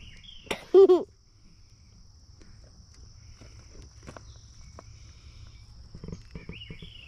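A steady, high insect chorus of crickets shrilling without a break. A short, loud, high cry cuts across it just under a second in, and there are faint clicks of handling.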